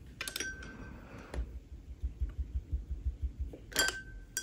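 Small hard clinks of watercolour half pans and paint tubes being picked up and set down. There are two pairs of clicks with a short ring after them, one just after the start and one near the end, and soft bumps in between.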